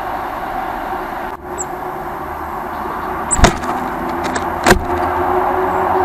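Steady hum of city traffic, broken by two sharp knocks about a second apart in the middle, with a couple of brief high peeps.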